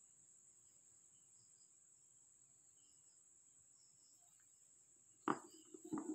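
Near silence with a faint, steady high-pitched hiss, then two short knocks about five and six seconds in as the stones are handled.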